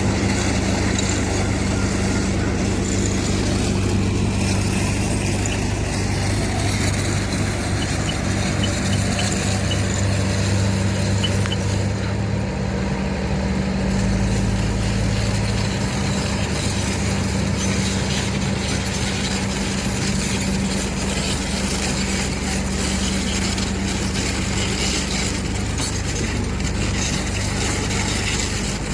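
Heavy diesel engine of earthmoving machinery running steadily with a constant low hum.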